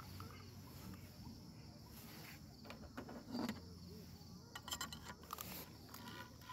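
Crickets chirping steadily, with a cluster of short clicks and knocks in the middle as a detachable gripper handle is clipped onto a small camping frying pan.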